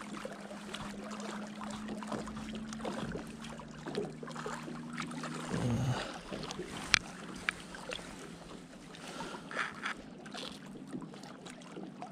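Light water sounds with a steady low hum for the first five seconds or so, and two sharp clicks about seven seconds in.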